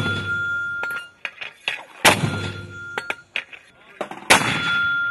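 A mortar firing in rapid succession: sharp launch blasts about two seconds apart, each followed by a steady high ring as it dies away. Lighter clicks fall between the shots.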